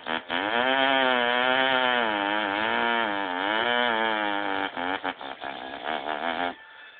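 A man imitating a chainsaw with his voice: a sustained buzzing tone that rises and falls in pitch like an engine revving. About two-thirds of the way through it breaks into an irregular sputtering putter, which stops near the end.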